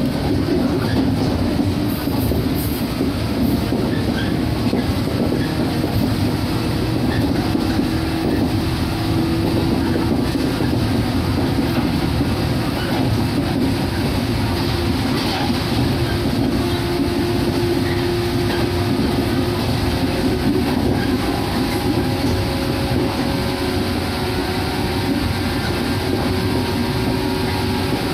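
Shinano Railway 115 series electric multiple unit running, heard from inside the car: the steady drone of its DC traction motors and the rumble and clatter of the wheels on the rails. The motor tone climbs slowly as the train gathers speed.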